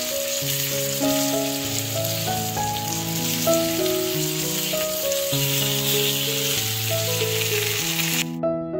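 Chicken breast pieces sizzling as they fry in vegetable oil in a frying pan, over background music with a slow melody of held notes. The sizzle cuts off abruptly near the end, leaving only the music.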